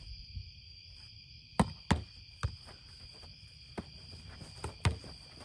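A boardball rally: several sharp slaps and thuds as the ball is struck by hands and bounces off the board, the loudest about a second and a half in and near the end. Crickets chirp steadily underneath.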